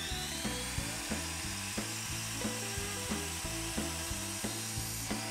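Miter saw motor running at full speed as the blade is brought down for a crosscut, its whine falling away as it winds down at the very end, over background music with a steady beat.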